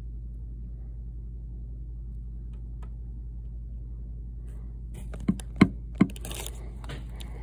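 Steady low hum inside a parked car, with three short knocks about five to six seconds in.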